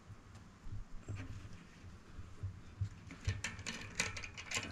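Light metallic clicks and rattles of small parts being handled at a bicycle rear hub: a quick-release skewer and its spring being worked through the axle. The clicks are scattered, coming faster after about three seconds.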